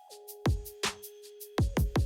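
Background electronic music: a drum-machine beat of kicks and snares over a held synth note that drops in pitch just after the start.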